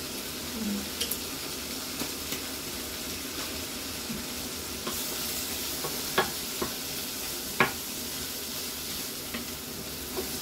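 Fish, shrimp and potatoes sizzling in a frying pan as a wooden spoon stirs them, with a few sharp knocks of the spoon against the pan, the loudest about six and seven and a half seconds in.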